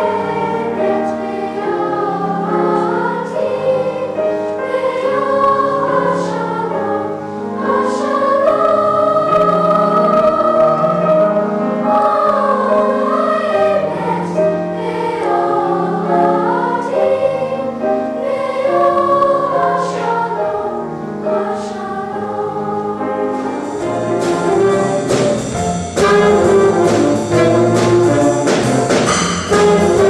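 Youth choir singing in parts. About three-quarters of the way through, the sound changes to a school jazz band playing, with saxophones, brass and drum kit.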